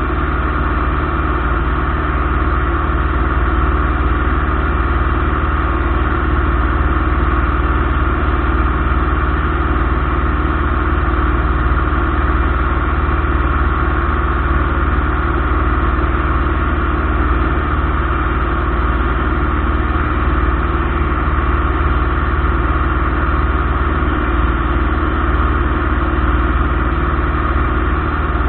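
Light aircraft's piston engine and propeller running at a steady, unchanging drone.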